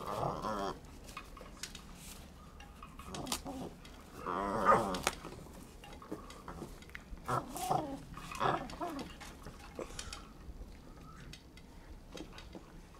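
Keeshond puppy growling in about five short bouts while tugging on a rope toy, the loudest about four to five seconds in, with light scuffing and clicking from the rope and toy between.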